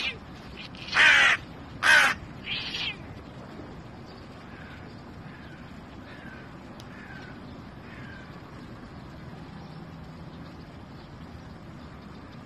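Hooded crow cawing: three harsh caws about a second apart, the first two loud and the third weaker. A run of faint, short falling chirps follows.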